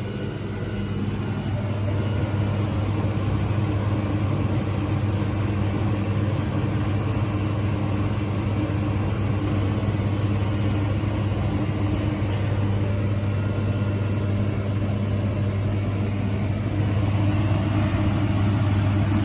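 Through-the-wall condensing unit running steadily just after start-up: its newly replaced compressor hums with a strong low drone and an even mechanical haze over it, without the loud pulsing of the failed locked-rotor compressor it replaced. It gets a little louder near the end.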